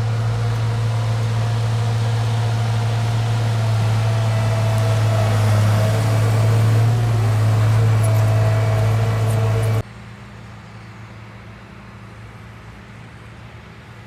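A motor running steadily with a low hum and a few steady higher tones. It cuts off suddenly about ten seconds in, leaving a much quieter outdoor background.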